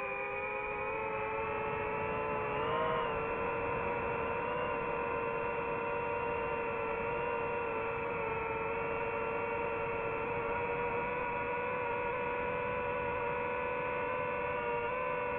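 DJI FPV drone's motors and propellers whining at a steady pitch in flight, with a short rise in pitch about three seconds in.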